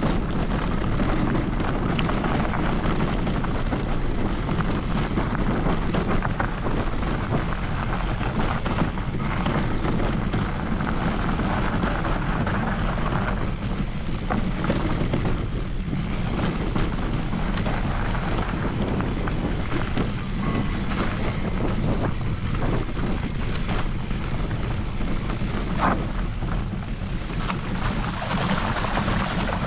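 Wind rushing over the microphone of a mountain biker riding down a trail, a steady low rumble mixed with tyre noise on gravel and small rattles and ticks from the bike.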